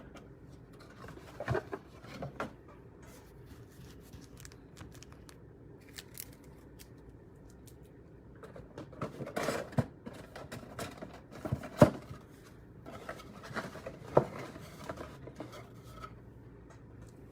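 Hands moving trading cards and packs around on a table: scattered light taps, slides and crinkles, with one sharper knock about two-thirds of the way through.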